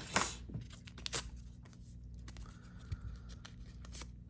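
Soft rustling and handling noises with a few light clicks, from hands getting ready to wipe a laptop's lid with an alcohol prep pad.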